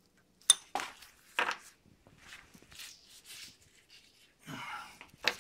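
Metal parts of a bicycle CVT gear hub being handled on a workbench: a few sharp clicks and knocks, the loudest about half a second in, with faint scraping and rubbing between them.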